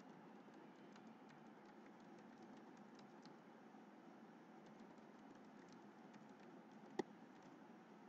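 Faint computer keyboard typing: soft, scattered key clicks with one sharper click about seven seconds in, over low room hiss.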